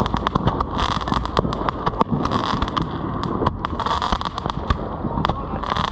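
Fireworks popping and crackling in rapid, irregular succession, with hissing shots from a handheld roman candle.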